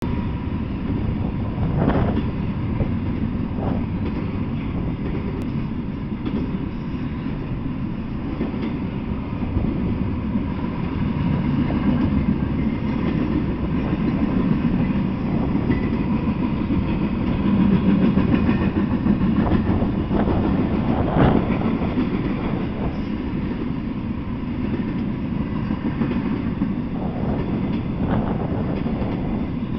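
Double-stack intermodal freight train rolling past: a steady rumble of steel wheels on rail, with a few sharp clacks.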